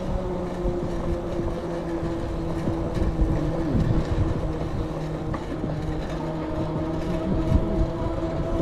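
Expand 5 e-bike riding along: a steady hum from the rear hub motor and the VeeMoto E Huntsman tyres on the path, its pitch creeping slowly upward, over a low wind rumble on the microphone.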